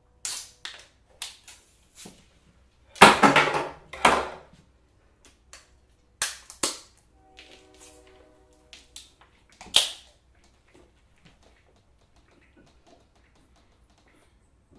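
Aluminium beer cans being handled, with a string of sharp clicks and taps. A loud noisy burst about three seconds in is the loudest sound, and a brief low buzzing tone comes around the middle.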